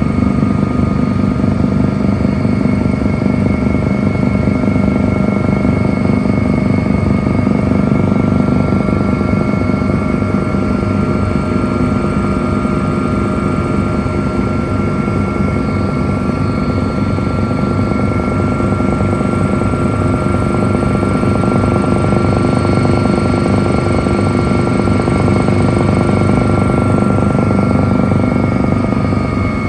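Helicopter running steadily in flight, heard from aboard: a constant loud rotor and engine noise with steady whining tones over a fast low beat.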